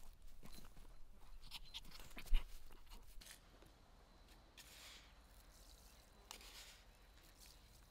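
A dog and a cat tussling on grass: scattered rustles and clicks, with one sharp low thump a little over two seconds in. Then, after a pause, salt is poured from a wooden bowl and sprinkled by hand into a basin of water, in two short soft hissing trickles.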